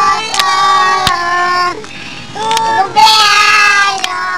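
A high, child-like singing voice in a song, in short phrases with a brief pause about halfway, with a few sharp clicks in between.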